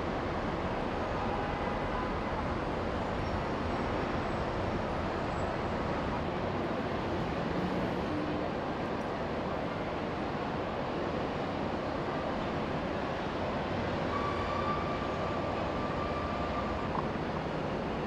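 Steady helicopter engine and rotor noise, an even rumble and hiss that does not let up.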